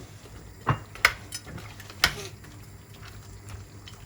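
Metal spoon stirring curry in a cooking pot, with a few sharp clinks of metal against metal, the loudest about a second in and two seconds in.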